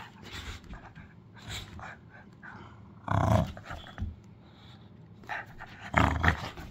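Dog growling and panting in play while tugging on a rope toy, with two louder growls about three and six seconds in.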